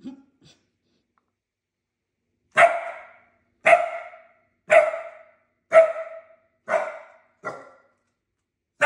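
A dog barking at a tub of live fish: a series of about six short, sharp barks roughly a second apart, starting a couple of seconds in.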